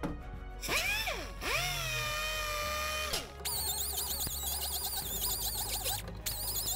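Small right-angle die grinder with a sanding disc, sanding the inner edge of a fiberglass tube. It gives a short rising-and-falling whine about a second in, then a steady whine that winds down about three seconds in. From about halfway it runs again, its high whine wavering in pitch as the disc works the edge.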